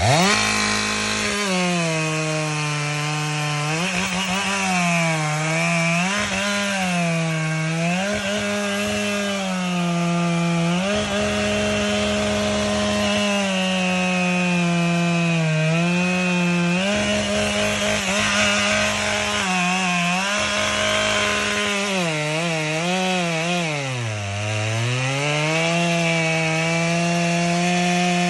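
Two-stroke chainsaw revved up to full throttle, then cutting wood. Its high engine note keeps sagging as the chain bites into the wood and recovers between bites, with a deep drop about three-quarters of the way through.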